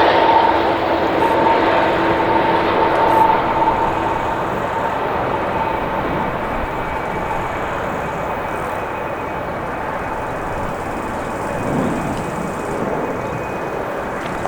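Jet airliner's engines passing close and moving away: a steady engine whine fades out over the first few seconds, leaving a broad rumble that slowly dies down.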